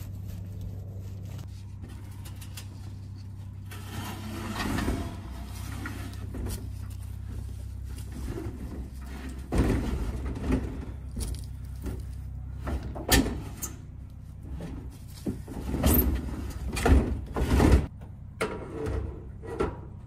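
Irregular knocks, thuds and scraping as an IBC tote, a plastic tank in a steel cage, is shoved and worked into place on a timber stand, busiest from about halfway to near the end. A steady low hum runs underneath.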